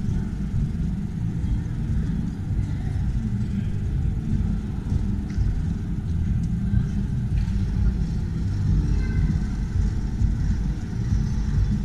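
Low, fluttering rumble on the camera microphone, with faint voices of people in the background.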